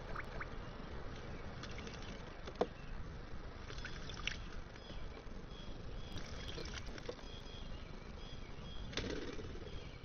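A bluebird bathing in a shallow stone bird bath: short bursts of splashing and wing-fluttering in the water a few times, with a larger flurry near the end, over a steady background hiss.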